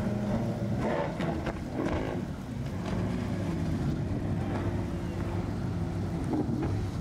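Speedboat outboard engine running at high speed, a steady drone, with wind on the microphone.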